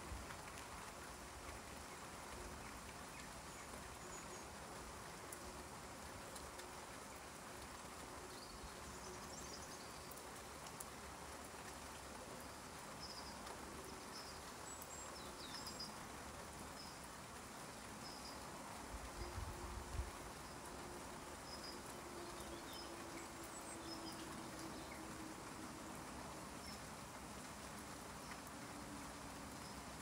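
Steady light rain falling on garden foliage, with a small bird chirping in short repeated high notes through the middle and a faint low drone in the background. A brief low rumble about two-thirds of the way through.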